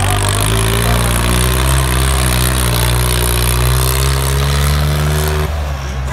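Diesel tractor engine working hard at high revs while the tractor drives on its rear wheels, its pitch climbing slowly. Near the end the higher part of the engine note cuts off abruptly.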